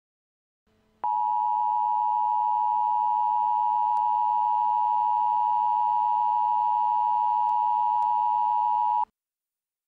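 Emergency Alert System attention signal: one steady, loud tone near 1 kHz that starts about a second in, holds for about eight seconds and cuts off sharply. It marks the start of an emergency alert, here a severe thunderstorm warning.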